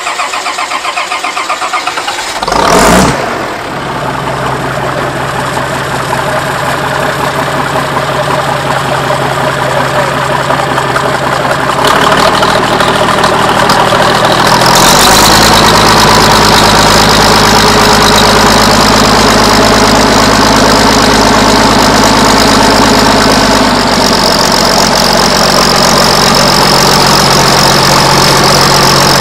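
A 1969 International 826 tractor's six-cylinder engine starting. The starter cranks for a couple of seconds, the engine catches with a loud burst about three seconds in, and it settles into a steady idle. It is then run faster in two steps, and eased back a little several seconds before the end.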